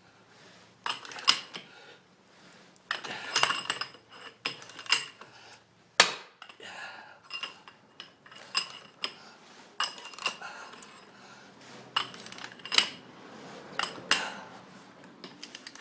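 Metal tools and the parts of a bushing press clinking and clanking against each other and the control arm: irregular, sharp metallic strikes that ring briefly, the loudest about six seconds in.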